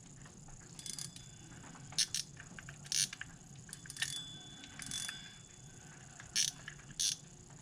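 Carp spinning reel being worked by hand: a faint mechanical whir of the gears turning, broken by sharp separate clicks from its drag and clicker mechanism, about one or two a second at uneven spacing.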